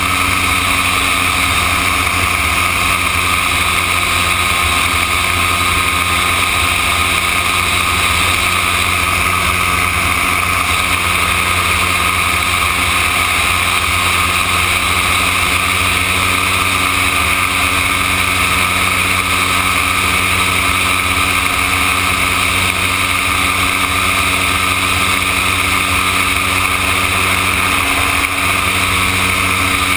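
Gyroplane engine and propeller running steadily in cruise flight, with wind rushing past an on-board camera.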